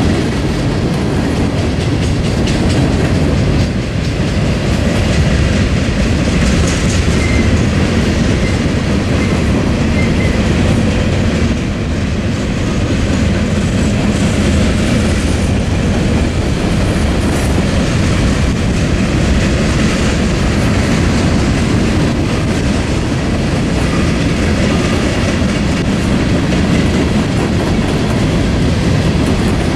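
Freight train's cars rolling past close by: a loud, steady rumble of steel wheels on the rails as boxcars, covered hoppers and tank cars go by.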